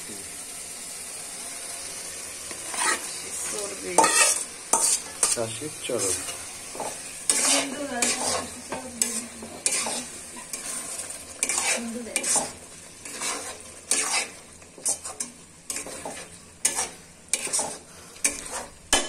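Steel spatula scraping and knocking against a wok as chopped goat fat in spicy masala is stirred, with frequent irregular strokes from about three seconds in, over a steady sizzle of frying fat.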